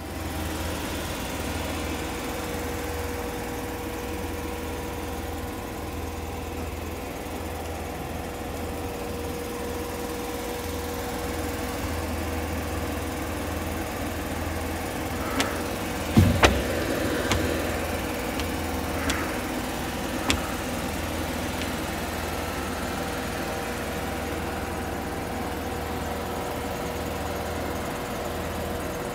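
An engine on a bucket truck running steadily at idle, with a steady hum and a couple of level tones through it. A few short knocks and clicks come in the middle, the loudest about sixteen seconds in.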